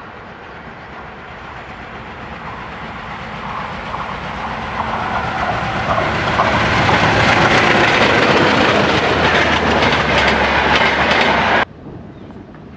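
ALCo WDM-3A diesel-electric locomotive approaching and passing under power, growing steadily louder, with the wheels clattering over the rail joints. The sound cuts off suddenly about a second before the end.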